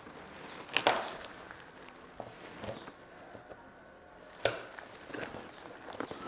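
Cutters crunching through a fish's skull bone: two sharp cracks, about a second in and again after four seconds, with a few fainter clicks between.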